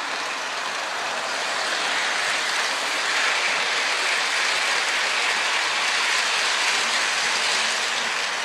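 Model train running along its track close by: a steady rushing rattle of wheels and motor, a little louder from about two seconds in until near the end.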